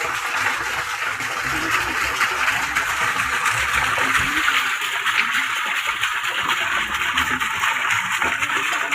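A steady rush of running or pouring water, with small clicks and scrapes over it.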